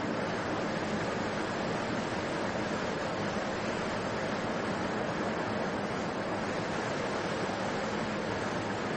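Steady rushing background noise with no distinct events, like wind or distant surf.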